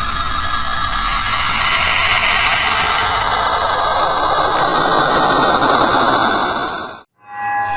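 Saturn's radio emissions, measured by a space probe and converted into audible sound: a dense, steady rushing noise with faint droning tones. It grows stronger in the middle range, then cuts off abruptly about seven seconds in. After a brief silence, electronic music with held tones begins.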